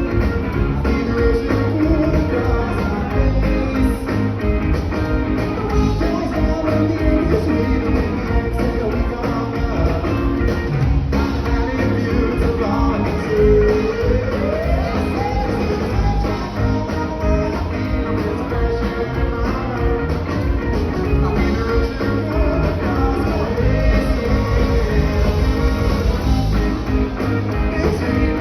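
A live rock band playing: electric guitar, bass and drums with a steady beat, and some singing. A note slides upward about halfway through.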